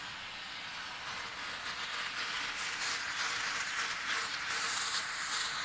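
Steam locomotive working as it moves up the track, its exhaust hissing in repeated puffs and growing louder about two seconds in.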